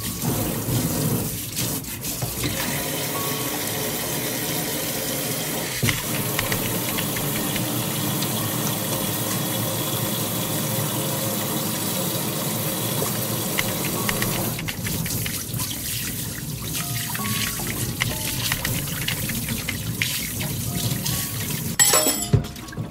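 Water running steadily from a tap into a sink, with background music over it.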